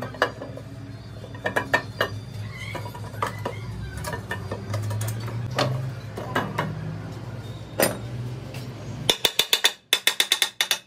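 Scattered metallic clinks and knocks as a truck gearbox casing and its parts are handled, over a steady low hum. Near the end the hum drops away and a fast run of sharp metallic clicks follows, several a second.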